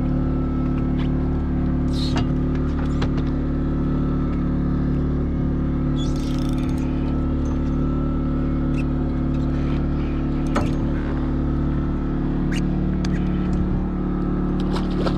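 An engine aboard a fishing boat running with a steady, even hum. Scattered sharp clicks and knocks come over it, with a brief hiss about six seconds in.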